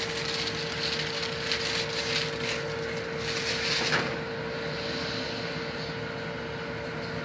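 Steady mechanical hum of kitchen machinery, with one constant tone running through it. Irregular scraping and handling noises come during the first four seconds, then stop.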